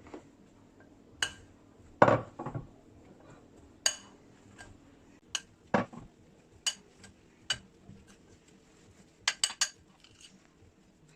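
A utensil clinking and knocking against a mixing bowl at irregular intervals while mashed potato, tuna and spices are stirred together, with a quick run of three or four clinks near the end.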